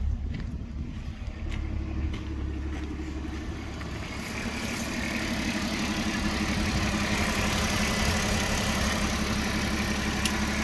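2006 Porsche Cayenne engine idling with an uneven, pulsing beat; it grows louder and hissier about four seconds in. The owner has a misfire and shaking engine that new spark plugs and coils have not cured, and suspects a vacuum leak or throttle body fault.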